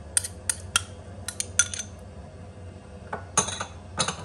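Metal spoon clinking and scraping against a small glass bowl while scooping out garlic-ginger paste. There is a run of sharp clicks in the first two seconds, then a few more near the end.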